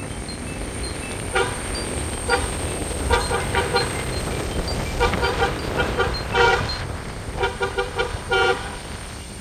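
Vehicle horn sounding in many short toots, in quick runs of several, over a steady low road and engine rumble.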